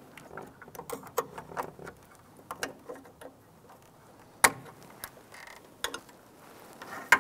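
Scattered small clicks and ticks of needle-nose pliers releasing plastic wire-harness clips from a car's battery tray. One sharper snap comes about four and a half seconds in.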